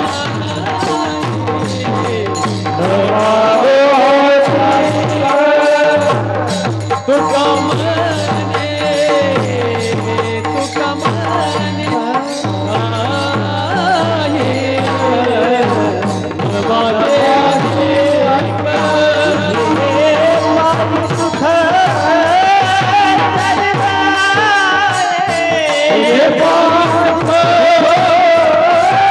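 Devotional bhajan singing: a voice draws out long, winding held notes over steady drum and cymbal accompaniment.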